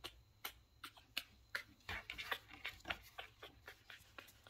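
Faint handling of a newborn puppy as she is set down on a plastic kitchen-scale tray, with a run of quick soft clicks, about two to three a second, and a busier patch of rustling and knocking about two to three seconds in.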